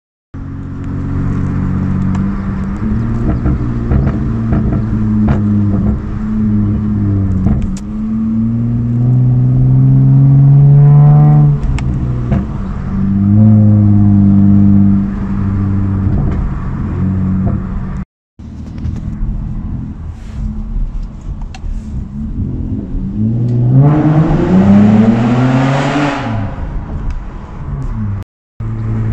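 2011 Honda Accord's 3.5-litre J35 V6 running with its resonator and muffler deleted, heard from inside the cabin. The exhaust note rises and falls as the car accelerates, with pitch climbing hard for about two seconds near the end. The sound cuts out briefly twice.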